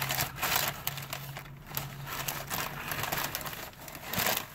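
Takeout food bag rustling and crinkling in irregular bursts as food containers are handled and put back into it.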